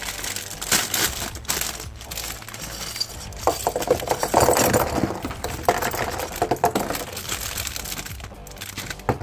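A plastic LEGO parts bag crinkling as it is pulled open, then a spill of small plastic LEGO bricks clattering and scattering across a hard tabletop in a dense run of clicks.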